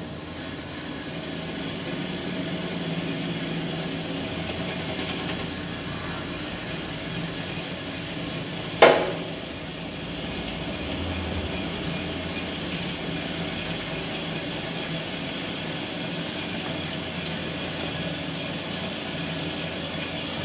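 Horizontal metal-cutting band saw running steadily while its blade cuts through round metal bar stock. A single sharp clank comes about nine seconds in.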